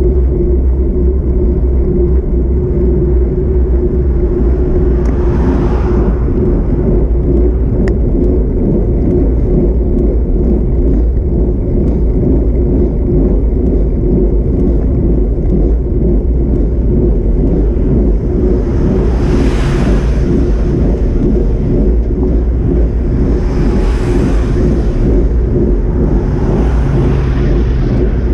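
Loud wind rumble on the microphone of a moving bicycle, with a steady hum underneath. Cars pass several times as rising and fading whooshes: one about five seconds in and three more in the last ten seconds.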